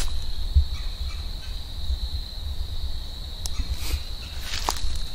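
Steady high insect trill from crickets in the woods, with a few rustling footsteps through leaves and brush a little after halfway and near the end.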